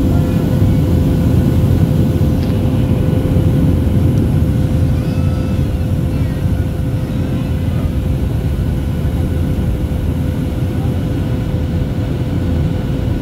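Steady cabin drone of a Boeing 737-800 in flight: engine and airflow rumble with a steady hum running underneath, heard from a window seat over the wing.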